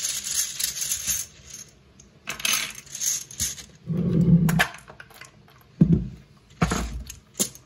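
Small plastic game tiles and metal charms clattering in a wooden tray in two bursts of rattling, then a dull bump and a few sharp knocks as the wooden tray is handled.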